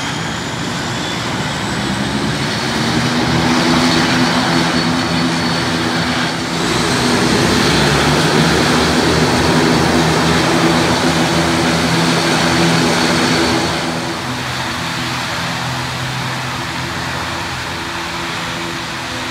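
ATR 72 twin-turboprop airliner taxiing with both engines running: a steady propeller drone with a high turbine whine. It grows louder about three seconds in and drops back about two-thirds of the way through as the aircraft turns away.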